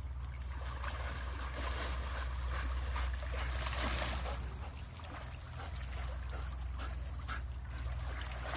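River water splashing and trickling, over a steady low rumble.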